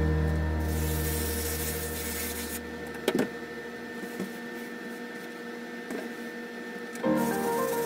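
Background music: a held low note fades away over the first couple of seconds, leaving a faint steady hum with a light hiss and a few soft clicks. The music starts again near the end.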